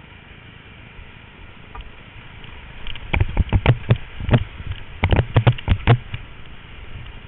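Rushing whitewater hiss as a kayak runs a rapid. From about three seconds in comes a quick, irregular run of loud, sharp splashing knocks close to the microphone: water and paddle strokes slapping at the boat and camera.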